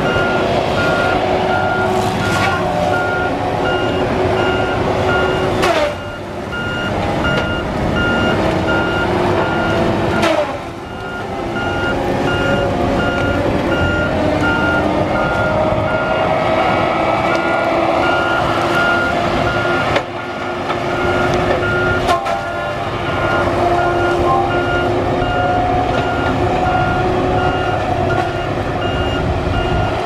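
Tigercat LX830D tracked feller buncher working: its diesel engine and hydraulics running hard, the pitch rising and falling, while its travel alarm beeps over and over. A few sharp cracks stand out over the machine noise.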